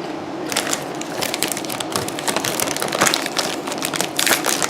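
Crunchy potato chips being eaten: irregular crisp crunches with some crinkling, close to the microphone.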